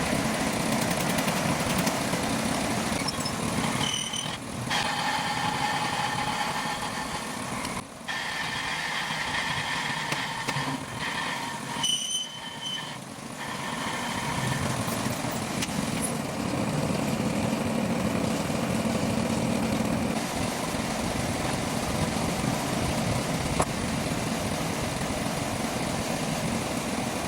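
Metal-turning lathe running steadily while machining an engine part. For several seconds in the middle a higher whine rises over the running noise, breaking off briefly a few times.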